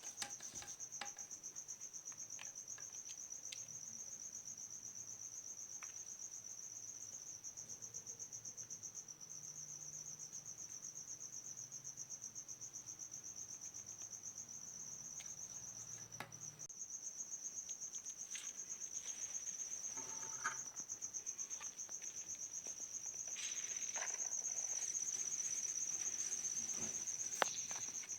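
A cricket chirping steadily, a high, rapidly pulsing trill that never stops, with a few faint clicks and taps scattered through, the sharpest near the end.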